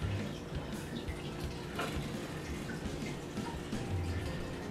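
Butter and brown sugar sauce sizzling and bubbling steadily in a skillet, with a few faint ticks.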